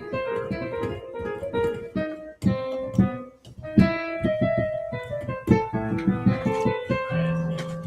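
Piano being played: a continuous run of struck notes and chords, each note starting sharply and ringing as it fades, with a low note held near the end.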